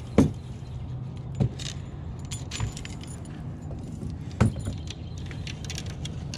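Fishing rods clicking and rattling against one another as a bundle of rods is handled, with light metallic jingling and three louder knocks. A steady low hum runs underneath.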